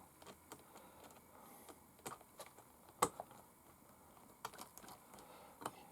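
Faint, scattered clicks and light taps of small parts being handled: a brass wheel weight and its pins being tried on a small RC crawler wheel. One sharper click comes about three seconds in.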